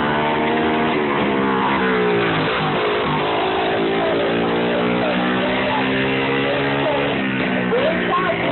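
Race car engine running at high revs in one long steady drone, its pitch dipping briefly twice as it comes off the throttle and picks up again.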